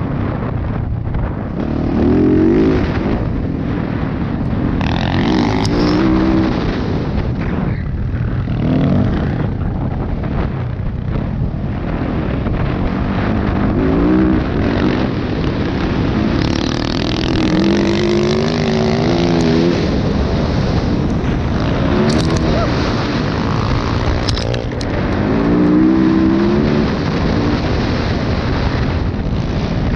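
Dirt bike engine revving up and dropping back again and again as the rider works the throttle through the gears, heard from on the bike, over steady wind and riding noise.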